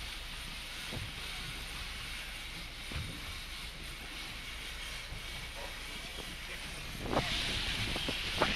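Boat engine running under way, a steady low rumble mixed with wind on the microphone and water noise. About seven seconds in, a louder rush of wind and water sets in.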